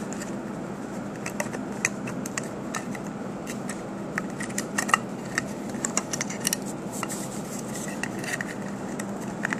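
Scattered small plastic clicks and knocks as a circuit board is worked loose and pulled out of a USB hub's plastic housing, over a steady low hum.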